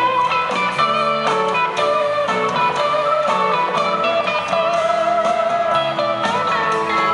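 Live rock band playing: an electric guitar lead with held, bending notes over bass, keyboards and a steady beat from two drum kits.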